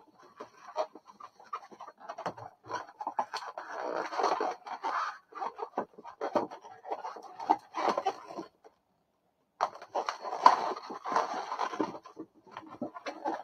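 Latex modeling balloons squeaking and rubbing against each other as they are twisted and woven together by hand. The squeaks come in uneven runs and stop briefly about nine seconds in.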